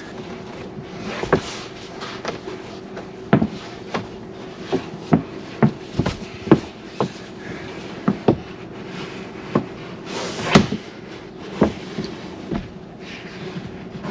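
Scattered sharp clicks and knocks, irregular and a second or so apart, as a pop-up mesh sun shade with a metal-ring frame is handled and pushed up against a car's roof and trim, over a steady low hum.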